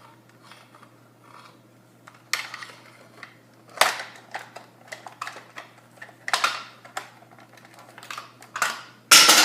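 Hard plastic parts of a Nerf gun being handled and pried at: irregular clicks and clatters, with a louder clatter near the end.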